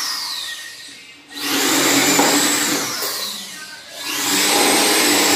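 Small corded electric drill boring holes into a wooden board. It runs in short bursts with a high whine that falls in pitch as it winds down, and is started again about a second in and near four seconds.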